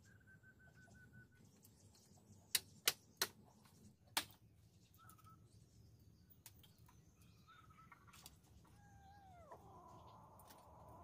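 A cat mewing, with short high mews and then a longer falling meow near the end. About two to four seconds in come four sharp knocks, the loudest sounds.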